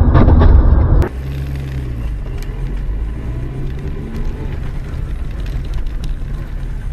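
Car interior heard through a dashcam: loud low road and engine rumble for about a second, then an abrupt cut to a quieter, steady engine hum in the cabin with a few faint clicks.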